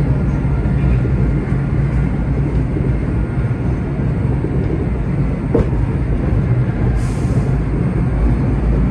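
MBTA Red Line subway train running through a tunnel, heard from inside the car: a steady low rumble, with a sharp click about five and a half seconds in and a short hiss about seven seconds in.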